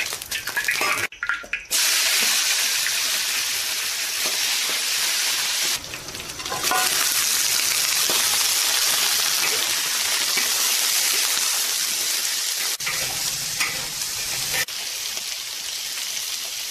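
Chunks of bamboo rat meat sizzling loudly in hot peanut oil in a wok as they are stir-fried with a metal spatula. The loud sizzle starts suddenly about two seconds in, when the meat goes into the oil.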